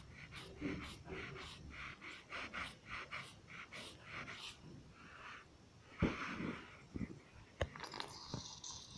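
Faint, quick squelchy dabs of a paint-filled squeeze brush pressed again and again onto paper, its runny, bubbly blue paint squishing at the tip, about three dabs a second. A few louder knocks come in the second half.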